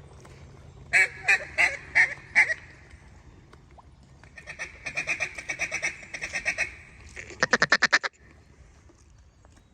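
Mallard-style duck calling: five loud quacks, then a longer run of quicker quacks, ending in a very fast chatter that cuts off sharply.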